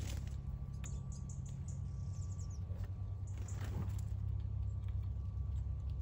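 Outdoor background with a steady low rumble throughout, scattered faint clicks, and a few faint high chirp-like sounds about two seconds in.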